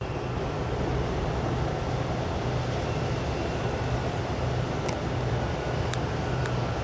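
Ferry diesel engines droning steadily, a low pulsing hum under a rushing noise, with a few faint clicks near the end.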